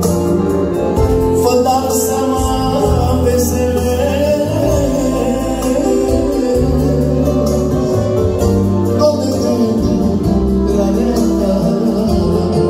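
Two accordions and an electronic keyboard playing a Romanian song together live, with held accordion chords over a keyboard bass line.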